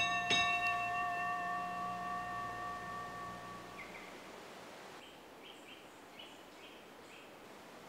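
A single bell-like chime that rings and slowly fades over about four seconds, with the scoreboard ticking up a point. Faint bird chirps follow near the end.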